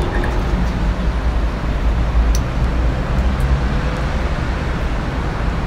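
Steady outdoor city traffic noise, a low rumble with a hiss above it.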